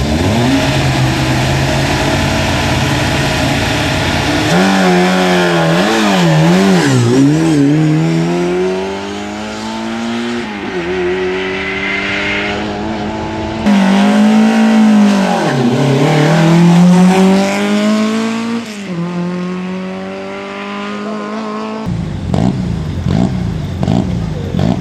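Rally car engines at a stage start: one idling steadily, then cars revving hard with the pitch jumping up and down before pulling away, a second loud run of revving about two-thirds of the way through.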